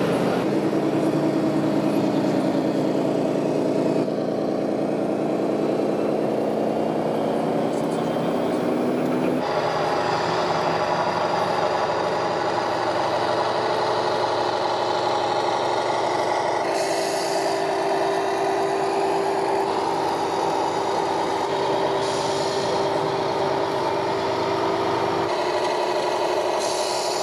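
Simulated diesel truck engine sound from radio-controlled model trucks' sound modules: a steady engine note that climbs slightly in pitch, then switches abruptly to another truck's engine sound about nine seconds in. Short hisses come near the middle and near the end.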